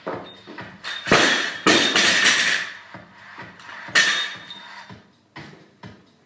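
A barbell loaded to 135 lb with bumper plates dropped from the front rack onto the platform: a heavy thud about a second in, then a bounce with the bar and plates rattling. A sharper metal clank follows about four seconds in as the bar is handled on the floor.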